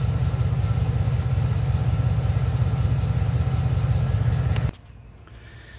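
MaxiTrac 300 L/min twin-cylinder 12 V portable air compressor running under load, a steady low hum with a fast even pulsing from its pistons, filling a small air tank. It cuts off suddenly about three-quarters of the way through.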